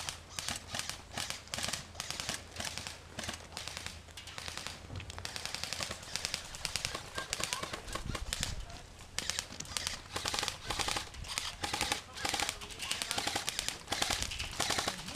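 Airsoft electric guns (AEGs) firing in rapid full-auto bursts, a fast rattle of sharp cracks that stops and starts.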